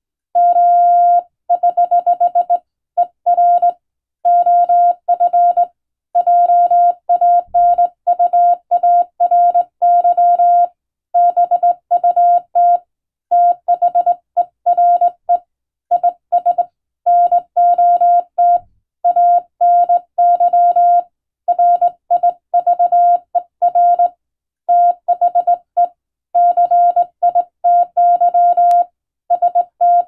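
Morse code hand-sent on a telegraph key, heard as the radio's single steady beep tone keyed on and off into rapid dots and dashes, in groups with short gaps between words. It spells out English plain-language practice text.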